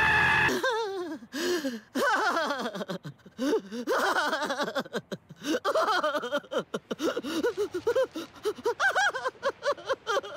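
A cartoon character's wordless voice: a long run of short vocal sounds, pitch swooping up and down, starting about half a second in.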